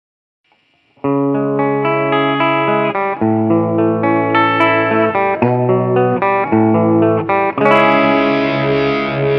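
Song intro played on a lone electric guitar: ringing chords picked one after another, starting about a second in, with the changes coming roughly once a second.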